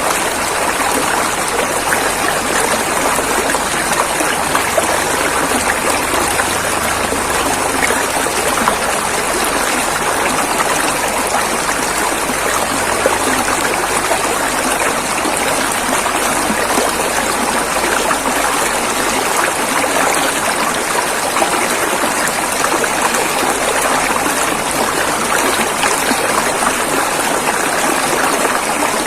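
River water rushing and splashing over rocks, a steady, dense wash of sound that never lets up.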